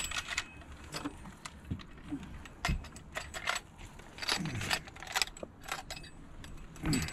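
Irregular metal clicking and rattling from a fish lip-gripper and hanging scale being handled, with a dull thump about three seconds in.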